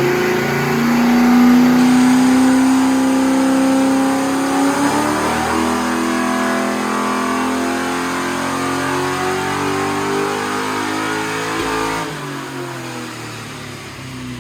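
LS1 V8 (5.7-litre) in a VN Commodore running under load on a chassis dyno during a power run, its pitch climbing gradually as the revs build. About twelve seconds in the throttle closes and the revs fall away.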